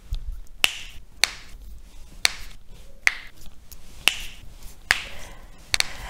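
Finger knuckles being cracked with the hands clasped together: about eight sharp pops at uneven intervals, two in quick succession near the end. The pop is thought to come from gas bubbles collapsing in the joints' synovial fluid.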